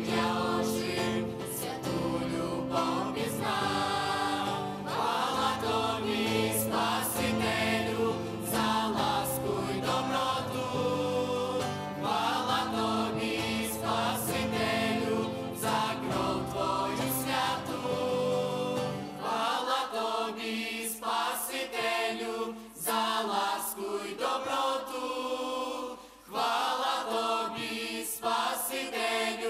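Mixed youth choir singing a Christian worship song with electric guitar and keyboard band accompaniment. About twenty seconds in, the low bass part drops out, and the voices carry on over lighter backing.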